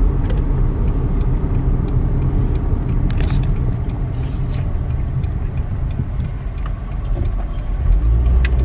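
Steady low rumble of a car heard from inside the cabin, with a few faint scattered clicks; the rumble grows a little stronger near the end.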